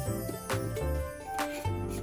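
Background music: a bass line under held melodic notes, with a sharp percussive hit about once a second.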